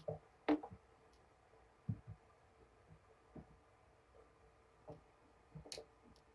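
Quiet room tone with a faint steady hum, broken by a few soft scattered knocks and one sharper click near the end.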